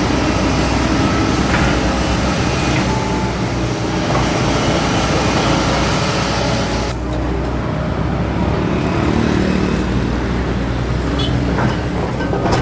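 Doosan DX225LCA excavator's diesel engine running steadily under load while it works, with a hissing high-pitched rush that drops away about seven seconds in.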